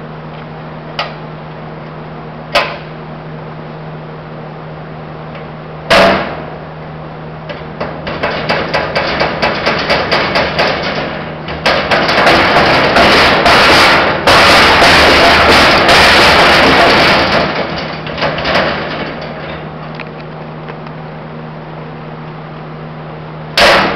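Heavy steel lid of an animal-proof litter receptacle clanking: a few single knocks, then a long loud stretch of rapid rattling and banging as the closed lid is worked by its handle, about four knocks a second at first and then a continuous clatter, ending with one more clank near the end.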